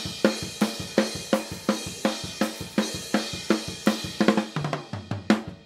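Multitracked drum kit recording played back in a steady beat: tightly tuned snare drum hits with hi-hat and cymbals, the snare track nudged 3 ms into phase with the overhead microphones. The snare has more smack and low-end impact and no longer sounds like a thin snare drum.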